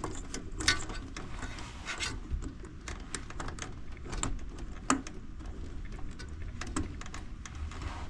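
Scattered light clicks, taps and rustles of hands handling wires and push-on terminals inside a PTAC air conditioner's sheet-metal cabinet, with one sharper knock about five seconds in.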